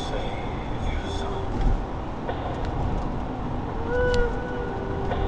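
Car driving, heard from inside the cabin: a steady low rumble of road and engine noise, with a short squeak about four seconds in.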